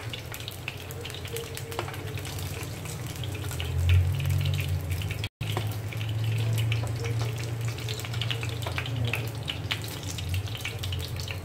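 Tofu cubes frying in shallow oil in a nonstick pan, the oil sizzling with many small pops, while wooden utensils lift the cubes out. A low steady hum runs underneath, and the sound cuts out for an instant about halfway.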